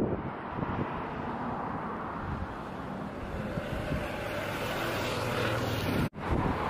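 A vehicle passing on the road close by: a steady rushing rumble that cuts out for a moment near the end.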